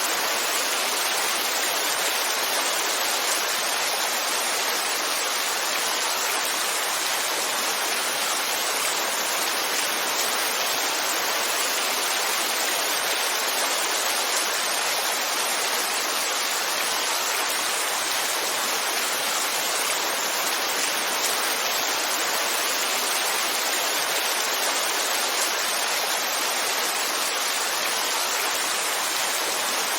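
Heavy rain falling steadily, a dense even hiss that does not change.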